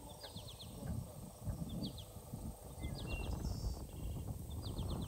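Small birds chirping in quick groups of three or four short notes, repeating every second or so, over soft thuds of a kitchen knife slicing a green vegetable on a wooden cutting board.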